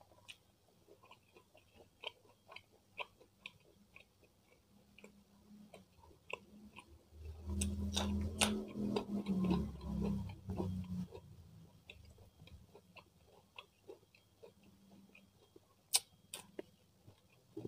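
Close-miked chewing and small wet mouth clicks of someone eating rice with beef rendang by hand. The chewing gets louder and denser for a few seconds in the middle, and there are two sharp clicks near the end.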